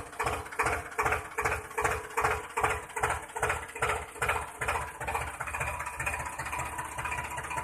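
Tractor diesel engine idling with a slow, even chug of about three beats a second, the beats evening out over the last few seconds.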